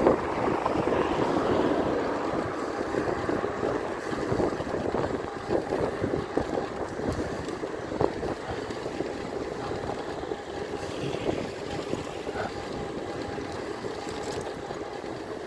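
Wind buffeting the microphone of a moving e-bike, with a steady rush of tyre and road noise. It is loudest in the first couple of seconds and eases off towards the end.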